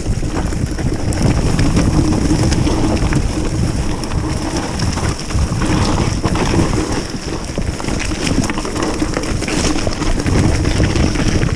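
Mountain bike descending a rocky, leaf-covered trail: tyres rolling over loose stones and the bike rattling with many small knocks, under steady wind noise on the camera microphone.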